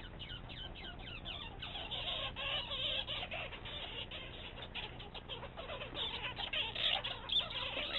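A squirrel chattering and squeaking in rapid, high chirps, over a faint steady low hum.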